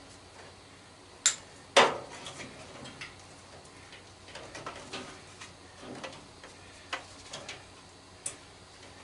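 Sharp metal clicks and knocks from an old microwave being taken apart by hand. A hard click comes about a second in and a louder knock just after, followed by scattered lighter ticks.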